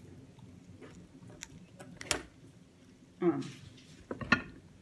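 A person eating: scattered wet mouth clicks and smacks from chewing, then a short clatter and a few knocks of food and dishes being handled in the second half.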